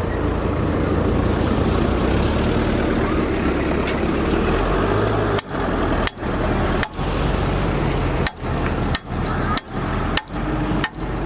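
Heavy diesel earthmoving engine running steadily. About halfway through comes a run of about eight sharp metallic knocks, roughly one every two-thirds of a second.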